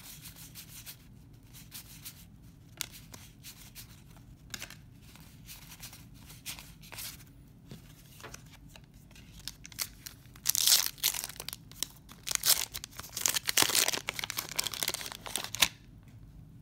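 A 1991 Donruss baseball card pack's paper wrapper being torn open and crinkled, loud crackling bursts from about ten seconds in for some five seconds. Before that, light shuffling of cards being handled.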